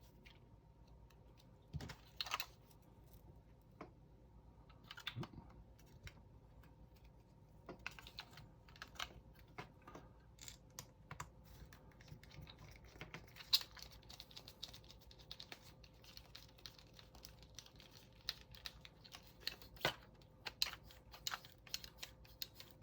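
Small clicks and ticks of a tiny M2 screw being driven into 3D-printed plastic parts and of the parts being handled, sparse at first and more frequent in the second half, over a faint steady hum.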